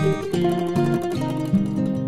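Background music: acoustic guitar plucking and strumming a melody.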